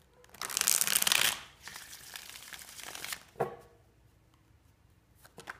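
A deck of tarot cards being riffle-shuffled: a loud fluttering crackle of cards interleaving for about a second, then softer rustling as the halves are pushed together. A single short knock follows about three and a half seconds in.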